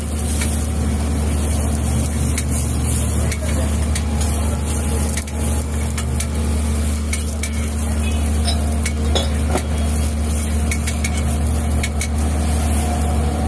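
Food sizzling on a hot flat iron griddle, with scattered light clicks and scrapes, over a steady low hum.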